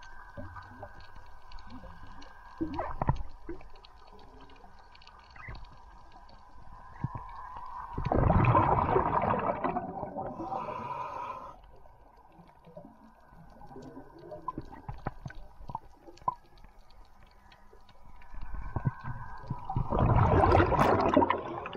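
Underwater sound picked up by a moving camera: a steady hum with scattered faint clicks. There are two louder bursts of gurgling, rushing water, one about 8 seconds in and one near the end.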